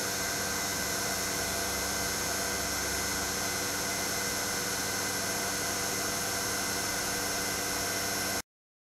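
Steady machine drone with a hiss and a constant hum: the CNC router's vacuum hold-down pump running. It cuts off suddenly near the end.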